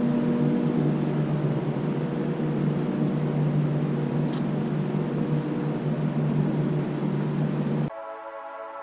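A steady low hum over a rushing background noise, like a fan or distant engine. Just before the end it cuts off suddenly and soft ambient music begins.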